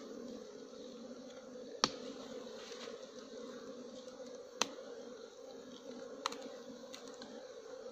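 A colony of bees buzzing steadily in a low hum around their nest in a hollow log as it is being opened. Three sharp clicks come about two, four and a half, and six seconds in.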